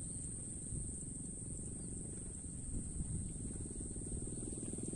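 Steady, high-pitched insect chirring that holds one unbroken tone throughout, over a low rumble.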